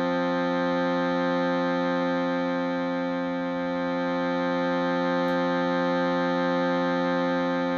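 Shruti box drone: a steady chord of reedy tones held without a break.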